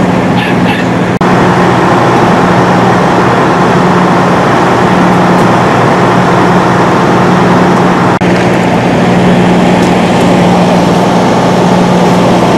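Heavy diesel engine of a fire truck idling steadily, a loud constant low hum over engine noise, broken by two very brief dropouts.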